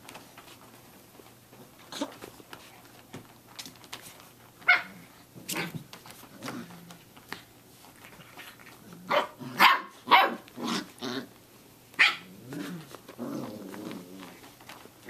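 Six-week-old Samoyed puppies yapping and growling at play: a scattering of short high barks, bunched around the middle, then low rough growling near the end.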